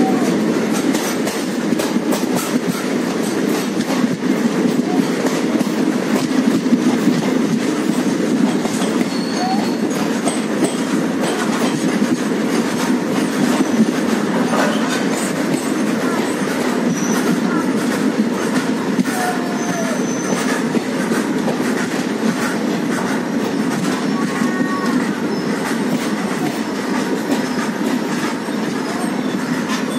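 Passenger train running along the track, heard from the side of one of its coaches: a steady rumble of steel wheels on rail with rapid clicking over the rail joints and a few brief, high wheel squeals.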